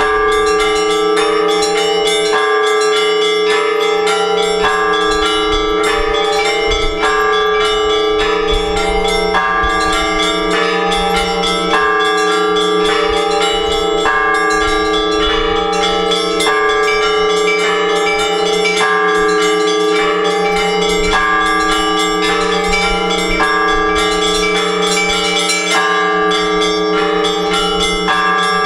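Orthodox church bells rung together in a peal calling worshippers to the all-night vigil. Small bells strike in a quick repeating pattern over the steady hum of the larger bells, with a heavier combined stroke about every two seconds.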